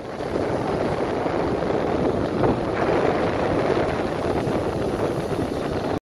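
Ocean surf: large waves breaking and washing up a sandy beach, a steady rush of water that swells a little in the middle.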